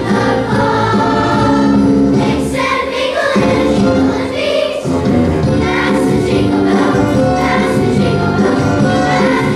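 Children's choir singing a holiday song together, with instrumental accompaniment holding low notes beneath the voices.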